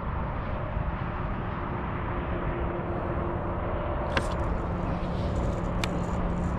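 Steady wind rumble on an outdoor microphone, with two sharp clicks about four and six seconds in as a fishing rod is swept back to set the hook.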